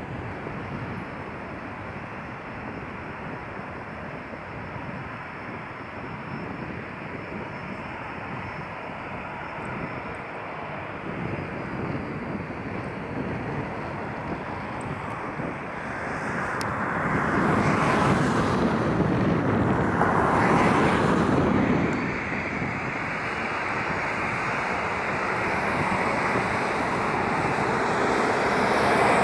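Boeing 737-7BC Business Jet's CFM56-7 turbofan engines running, a steady jet rumble with a faint high whine. It grows much louder about two-thirds of the way in, eases briefly, then builds again near the end.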